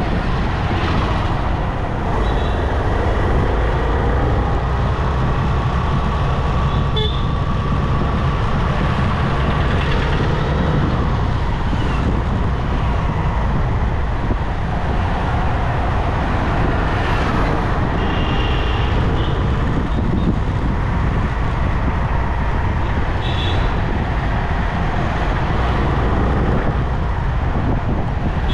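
Steady engine and road noise of town traffic heard from a moving motorbike, with a few short vehicle horn toots about two-thirds of the way through and again near the end.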